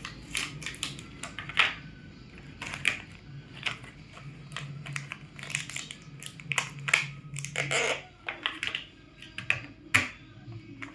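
Irregular plastic clicks, knocks and rattles as AA batteries are pushed and pressed into a toy car's battery compartment, a fiddly fit.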